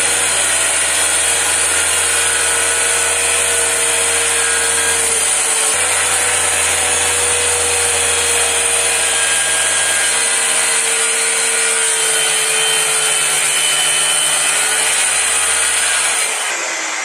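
Handheld corded circular saw cutting through an MDF sheet, running steadily under load with a whine that shifts slightly in pitch as it feeds. Near the end the cut finishes, the trigger is released and the motor winds down.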